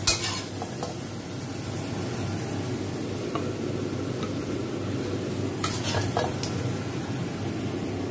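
Shrimp sizzling in a wok, with a metal spatula scraping and knocking against the pan: a sharp knock at the start and a few clinks about six seconds in.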